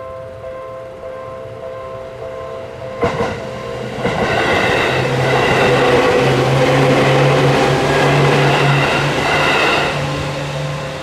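Railroad crossing warning bell ringing in a steady repeating ding-ding, with a sharp knock about three seconds in; then a Seibu Tamako Line train passes through the crossing, loud for about six seconds before fading, the bell sounding on throughout.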